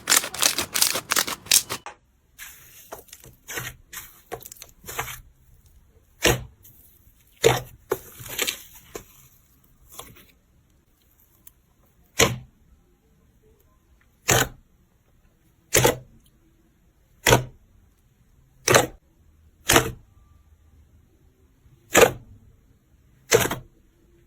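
Slime being pressed and poked, making crackling pops at first, then scattered soft clicks, then single sharp clicks or pops about every second and a half.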